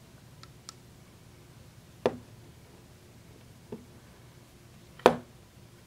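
Knocks and clicks from a flashlight being handled: two faint clicks, then three sharp knocks, the last one the loudest.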